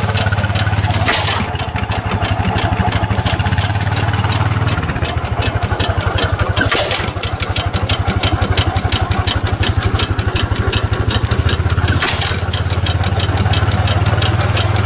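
Small vintage vertical-cylinder, hopper-cooled stationary gas engine running steadily under no load, with a rapid, even mechanical clatter and a louder sharp beat about every five and a half seconds.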